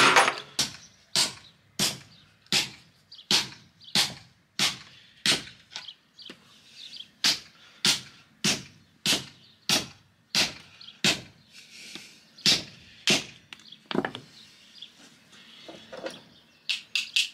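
Hammer striking a metal tube set on a wooden stump, steady blows about every two-thirds of a second, each with a short ring. The blows stop for a moment near the end, then come back as a quick run of strikes.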